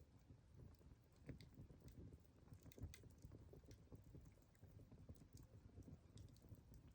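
Campfire crackling faintly, with irregular small pops and snaps over a low rumble.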